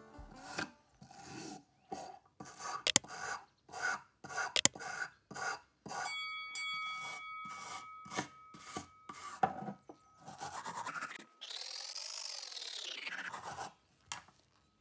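Small steel wire brush scrubbing rust off a screwdriver's steel blade in quick back-and-forth strokes, two to three a second. A short ringing tone comes in about six seconds in, and a smooth swish rises and falls near the end.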